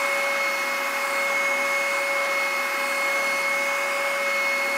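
Oscillating spindle sander running at full speed with a steady whine, a wooden board held against its spinning, up-and-down sanding drum to smooth an interior curve.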